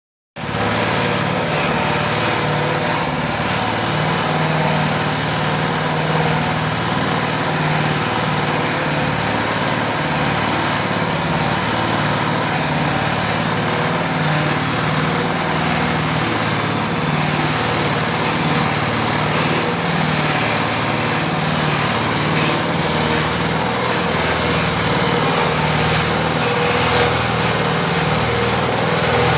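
Waste-chopping machine (shredder) running steadily, its small engine humming evenly over a dense mechanical noise.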